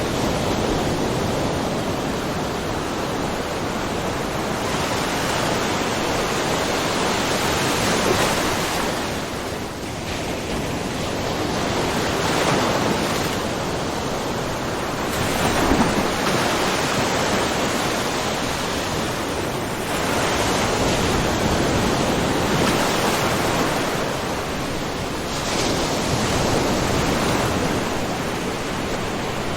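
Small ocean waves lightly splashing in a rocky mussel cove: a continuous wash of water that swells and eases every few seconds, with a few louder surges.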